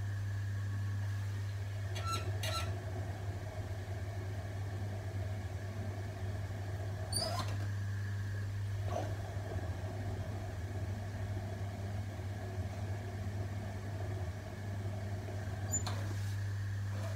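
Electric potter's wheel running with a steady hum while a tool scrapes excess clay from the base of a large thrown clay bowl, with a few short clicks.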